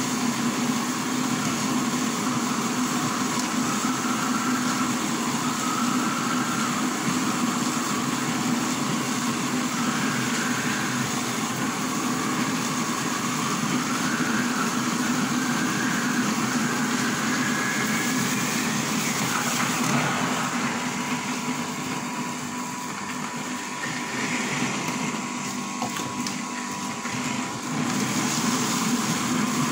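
Electric soybean grinding machine running steadily as it grinds soaked soybeans with water into soy milk slurry.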